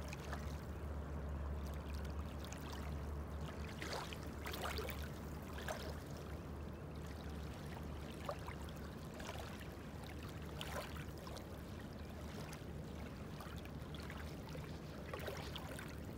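Small waves lapping on a sandy river shore, with faint little splashes every second or two, over a steady low rumble.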